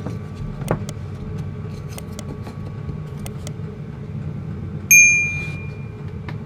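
A metal object struck once about five seconds in, giving a sharp clink that rings on briefly with a bright tone. Before it come a few light clicks, over a steady low hum.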